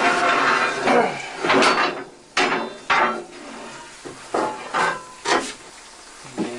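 Steel fireman's tools scraping and clanking at a steam locomotive's firebox. There are rough scrapes for the first two seconds, then about six single clanks spaced half a second to a second and a half apart.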